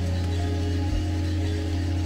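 Background music with long held low notes.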